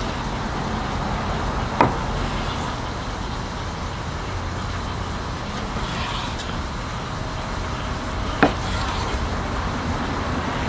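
A kitchen knife slicing raw pork tenderloin on a wooden cutting board, with two sharp knocks of the blade on the board, about two seconds in and near the end. Under it runs a steady low rumble.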